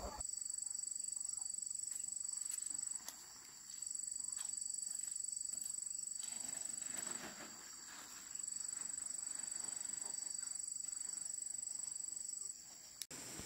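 Insect trilling: a steady, high-pitched, rapidly pulsing trill in three bouts of about three to four seconds each, with short breaks between.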